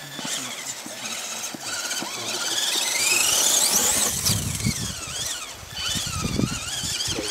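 Radio-controlled off-road truck's motor whining, its pitch sweeping up and down with the throttle as it climbs a loose sand and gravel hill. A low rumble joins about halfway through.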